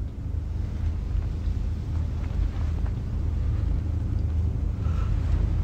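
A steady low rumble with no speech over it.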